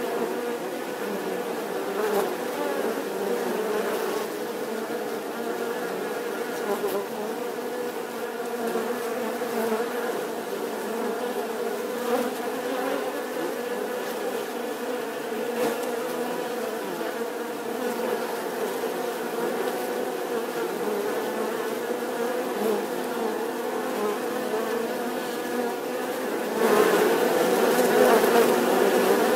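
Bees buzzing in a steady, continuous drone that gets louder a few seconds before the end.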